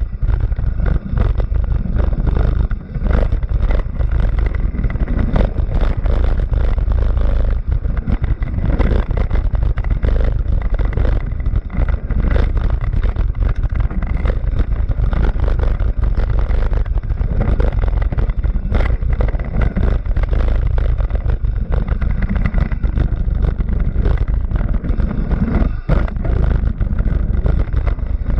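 A race car's engine runs continuously at speed, with a heavy low rumble and many short knocks over it.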